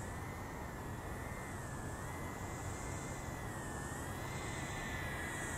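DYS Elf brushless tiny whoop quadcopter in flight, its motors and propellers giving a high whine that wavers gently up and down in pitch over a steady hiss.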